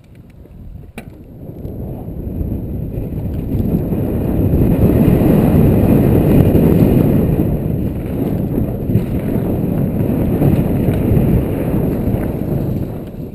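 Wind buffeting the action camera's microphone and a downhill mountain bike's tyres rumbling over a dirt trail, building from quiet to a loud steady rush over the first few seconds as the bike picks up speed. A single click sounds about a second in.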